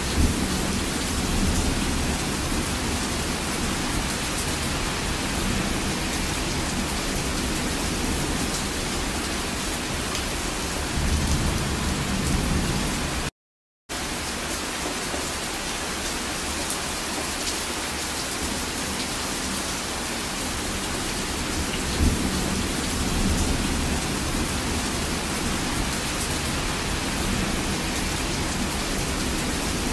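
Heavy rain falling steadily, with low rumbles of thunder swelling up a few times. The sound drops out completely for a moment about halfway through.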